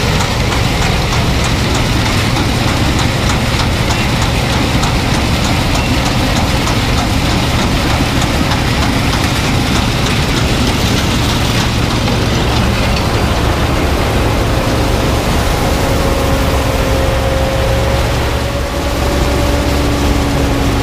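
New Holland combine harvesting soybeans, its engine and threshing machinery running steadily. A thin steady whine joins in about three-quarters of the way through.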